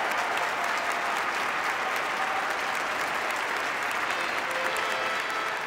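Large congregation applauding steadily.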